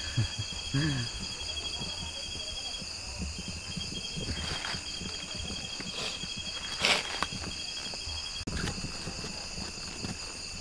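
Night chorus of crickets: a steady high trill with a faster pulsing note over it, which drops out briefly about three seconds in and stops about eight and a half seconds in. A few short rustles or scrapes sound over it, the loudest about seven seconds in.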